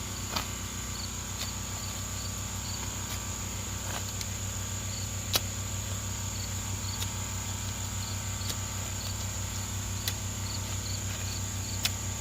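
Insects chirping: a steady high-pitched buzz with short chirps repeating in small groups, over a low steady hum, with a few sharp clicks scattered through.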